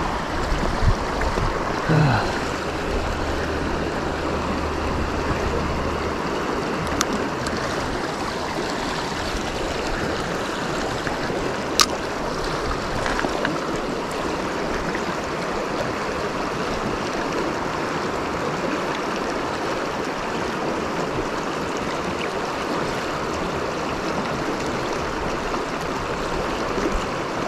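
Steady rush of a shallow creek running over rocks, with a couple of brief clicks partway through.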